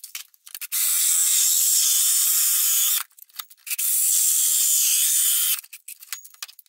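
Cordless drill with a hole saw cutting through the thin wall of a clear plastic storage box, in two runs of about two seconds each with a hissing, rasping cut and a few short clicks between and after. The cut is taken gently, turning only a little until the saw goes through, so the thin plastic does not crack.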